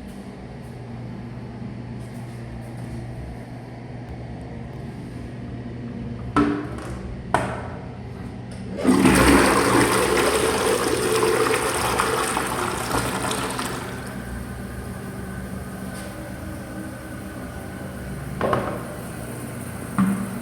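Two sharp clicks, then an FV Genova toilet flushes with a loud rush of water lasting about five seconds, easing into a quieter refill flow.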